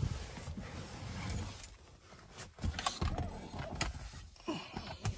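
Handling noise: soft rustling with a few scattered light clicks and knocks as someone shifts around inside a car's cabin.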